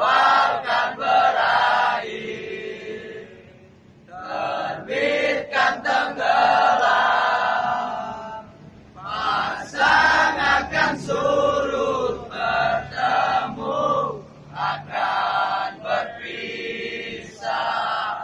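A crowd of football supporters singing together in unison, in phrases with short pauses between them.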